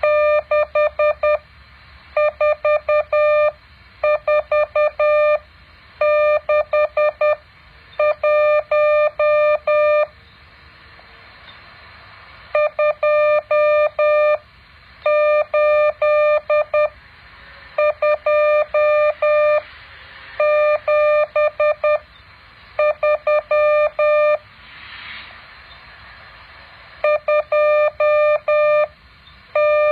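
Morse code practice tones: a steady, mid-pitched beep keyed on and off into dots and dashes, sent as about a dozen short groups of characters with brief pauses between them, over a faint hiss.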